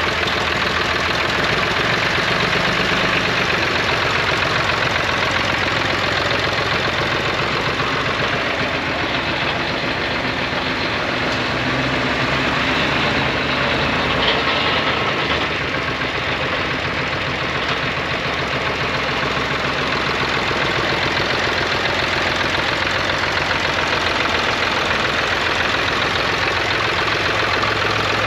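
Zetor 3011 tractor's two-cylinder diesel engine idling steadily.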